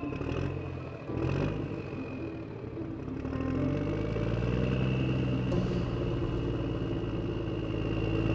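Motorbike engine running while riding along a road, its pitch climbing about three seconds in and then holding steady, with road noise and passing scooter traffic.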